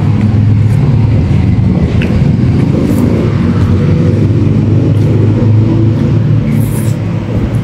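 A motor vehicle engine running close by: a steady, loud low rumble.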